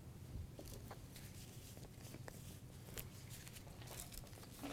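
Faint, scattered clicks and taps of small spice containers being handled, with a dried-herb jar picked up and its cap worked open, over a low steady room hum.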